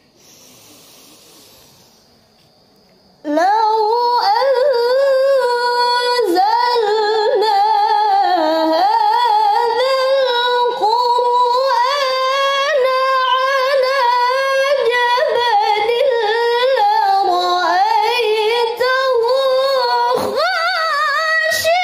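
A young woman's voice reciting the Qur'an in melodic tilawah style (murattal with maqam ornamentation) into a handheld microphone, beginning about three seconds in. She holds long, ornamented phrases on one breath, with a short break for breath near the end.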